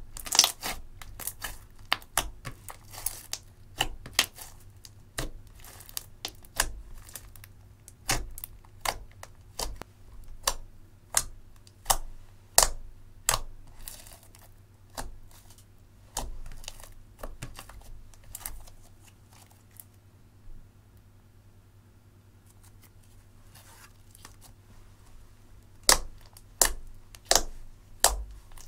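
Fingers poking, pressing and kneading thick slime, giving a string of sharp sticky clicks and pops about one or two a second. The pops thin out past the middle, then a quick run of them comes near the end.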